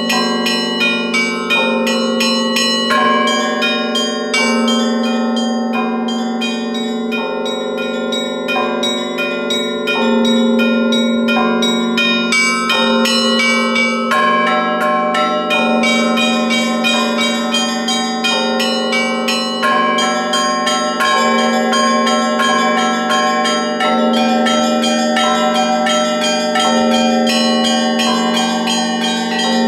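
Russian Orthodox church bells rung in a continuous peal (zvon): many smaller bells struck in quick succession over the sustained ringing of a deeper bell.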